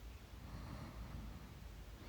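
A sleeping person breathing faintly, with a soft snorting exhale in the first second, over a low steady room rumble.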